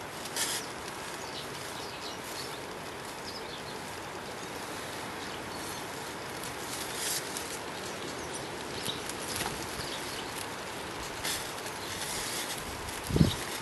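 Steady outdoor background hiss with a few short, sharp clicks scattered through it, and a single low thump near the end.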